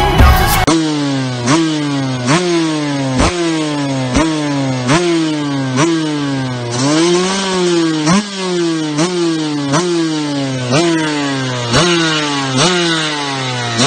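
2006 Suzuki RM125's single-cylinder two-stroke engine being revved in repeated throttle blips, the pitch jumping up and falling back about once a second, with one slower, longer rev about halfway through.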